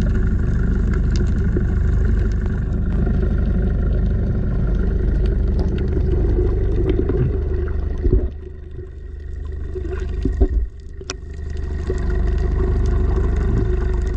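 A boat engine's steady hum heard underwater through the camera, with scattered faint clicks. A little past the middle the hum drops away for a few seconds, broken by a couple of sharp knocks, then comes back.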